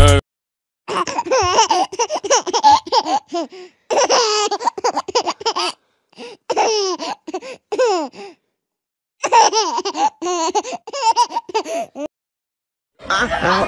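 A young child laughing in four bursts of rapid, high-pitched giggles, separated by short silences.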